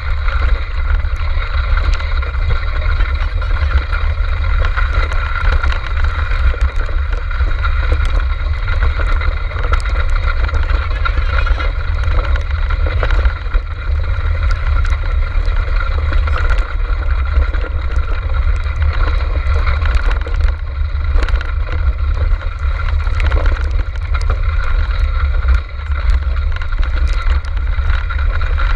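A multi-dog racing cart rolling fast over a rough grass course, heard from a camera mounted on the cart: a steady, heavy low rumble of wind and vibration on the microphone, with scattered light clicks and rattles.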